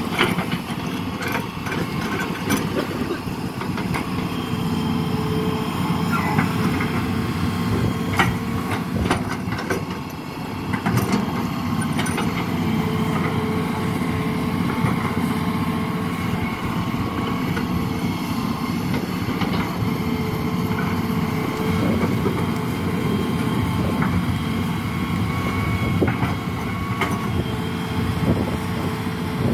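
Excavator's diesel engine running steadily under load, with a steady hydraulic whine over the drone and scattered sharp knocks.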